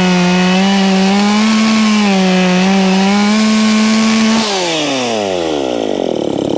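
Dolmar 510 two-stroke chainsaw at full throttle, its pitch dipping twice as the chain bites into wood. About four seconds in the throttle is released and the engine winds down in pitch toward idle.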